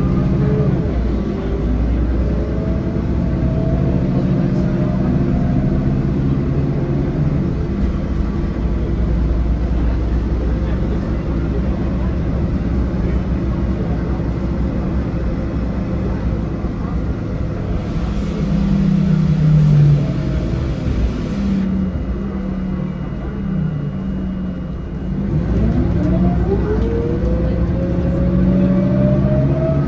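Low-floor city bus's diesel engine and road noise heard from inside the passenger cabin, running steadily as the bus travels. A hiss lasting a few seconds comes about two-thirds through, and over the last few seconds a whine rises in pitch as the bus accelerates.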